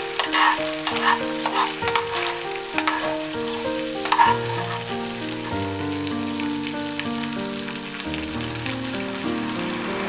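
Food sizzling in a frying pan, with a utensil clicking and scraping against the pan through the first few seconds, over background instrumental music.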